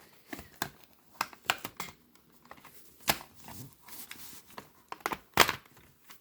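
Plastic VHS cassette shell being prised open by hand: a series of sharp plastic clicks and snaps, the loudest one near the end.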